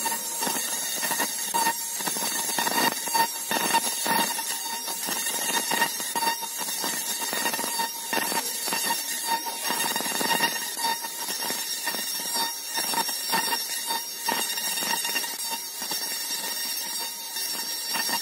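Fiber laser marking machine cutting thin brass sheet: a dense, irregular crackling from the metal being burned through, with a steady high-pitched whine and a tone that pulses on and off over it.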